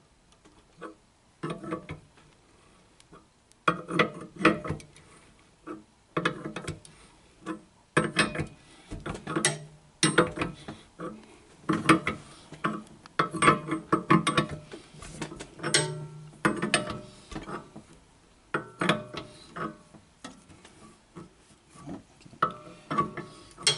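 Box wrench turning a threaded spreader tool back to release it from a sling-chair frame: repeated short metal clicks and clanks, about one to two a second, with the wrench and rod rattling between strokes. It starts about a second and a half in.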